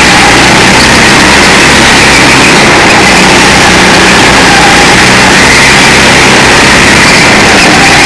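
Rental go-kart engine running loud and steady under the driver, heard from on board as the kart laps the track through corners.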